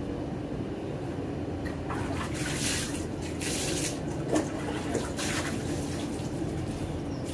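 Tap water running and splashing in bursts as hands and feet are washed under it.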